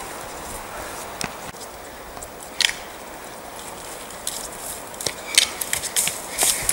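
Footsteps crunching and snapping through dry bracken, twigs and forest floor, scattered at first with one sharper snap, then coming more often near the end.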